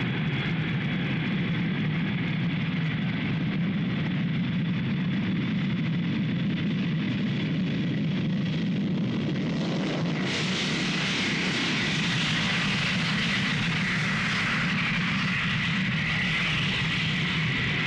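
Four-engined jet airliner's engines running at takeoff power during the takeoff roll: a steady roar with a high whine. About ten seconds in, the sound turns suddenly brighter and hissier.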